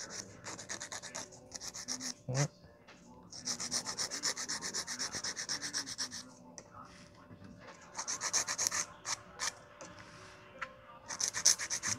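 A hand nail file rasping quickly back and forth over acrylic nails in several bouts of rapid strokes, giving them a light shaping pass before the acrylic powder is applied. There is a single knock about two seconds in.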